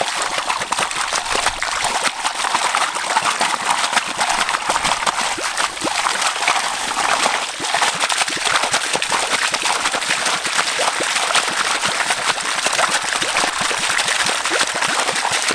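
Water gushing steadily from the open end of a disconnected irrigation pipe and splashing onto soil and plants, flushing green muck out of a blocked gravity-fed line.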